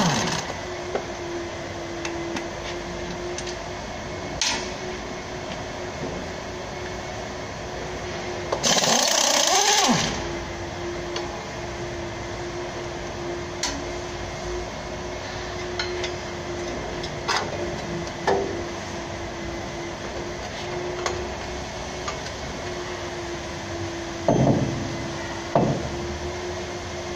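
Hand work under a lifted van's transmission during a clutch job: scattered sharp metal clanks and knocks of tools and parts over a steady workshop hum. About nine seconds in, a loud rushing whir lasts a little over a second, and two louder knocks come near the end.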